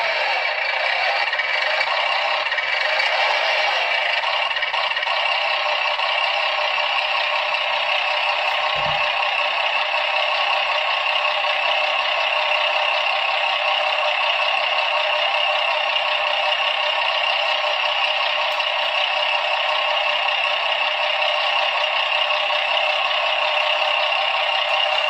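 A model truck's electronic sound module playing a recorded truck engine running at a steady idle through a small loudspeaker, thin and tinny with no bass.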